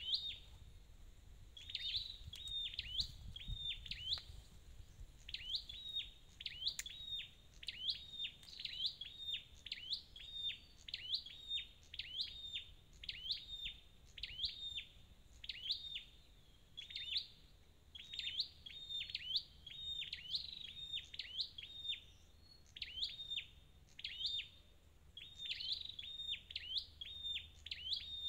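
Flowerpecker (chim sâu đầu đỏ) calling: short, high chirps, each a quick sweep in pitch, given in fast bursts of two to four, over and over.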